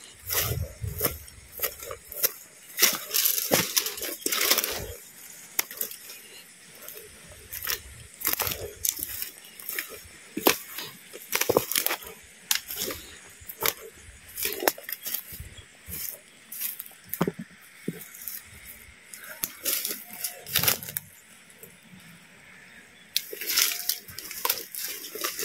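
Footsteps pushing through dry undergrowth: dry leaves crunching and twigs and brush snapping in an irregular string of sharp cracks, easing off for a few seconds near the end.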